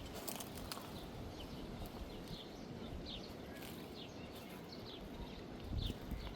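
A small bird chirping repeatedly in short, high, downward-sliding notes, about ten over the few seconds, over a steady low rumble.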